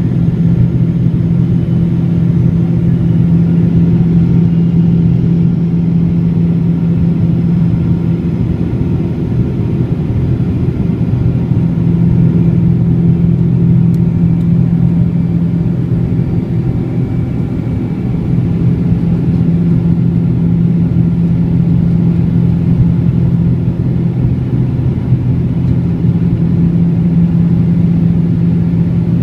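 Boeing 777-200's jet engines running at high power: a loud, steady low rumble with a constant deep hum in it.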